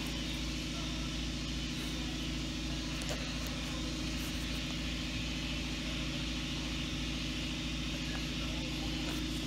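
Steady hum of a machine running in the background, an even low drone without change, with a faint click about three seconds in.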